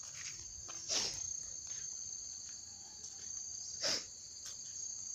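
Steady, high-pitched insect trilling, crickets or cicadas droning on two close high tones without a break. Two sharp clicks stand out, about a second in and near four seconds.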